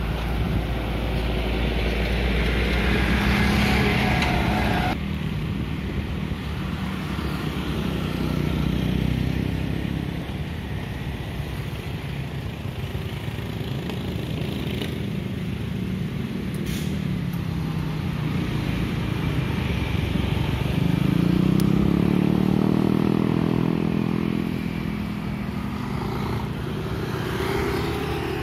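Road traffic with motorcycles and a car passing by, their engines rising and then falling in pitch as each goes past. The loudest pass comes about three-quarters of the way in, and the sound changes abruptly about five seconds in.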